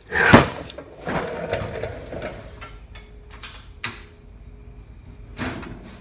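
Metal tools scraping and knocking against an electric motor's casing as it is forced apart: a loud screech near the start, a stretch of scraping, then sharp knocks near the end, one of which rings like struck metal.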